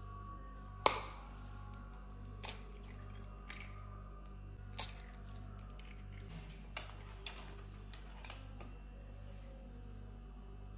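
Sharp taps and clicks of eggs being cracked on the rim of a stainless steel bowl and dropped in, the loudest about a second in and a few more through the middle. A faint low pulsing hum runs underneath.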